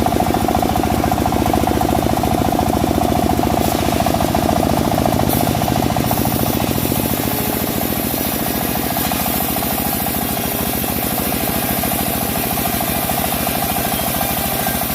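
Engine of a homemade bandsaw sawmill running steadily, its firing pulses coming in a fast even rhythm, with a steady mid-pitched whine over it.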